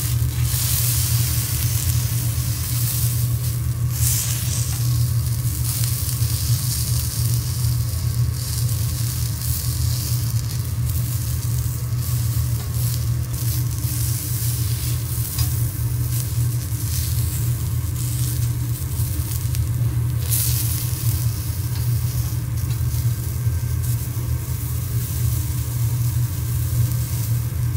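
Food sizzling on a teppanyaki iron griddle, a steady frying hiss that flares louder a few times, over a steady low hum.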